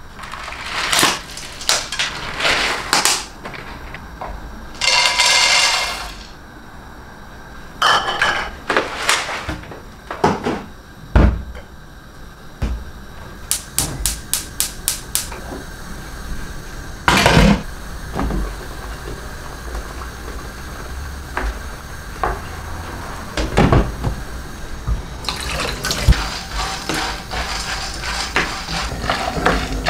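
Dry fried peanuts poured in rattling rushes from a bottle and a cup into a metal frying pan. About halfway through, a gas stove's igniter clicks rapidly several times as the burner is lit. Near the end the peanuts are stirred and scraped around the hot pan, with a steady hiss.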